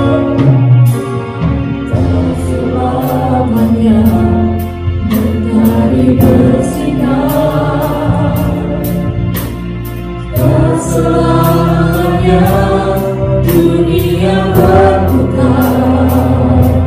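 A live church worship band playing a praise song. Several singers sing together over keyboard, bass and guitar, and a drum kit keeps a steady beat with regular cymbal strokes.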